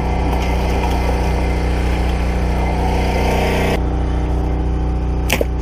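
Yamaha EF2000iS portable inverter generator on the bowfishing boat, running steadily at one constant pitch, a low hum with its overtones. A hiss over it cuts off suddenly about two-thirds of the way through.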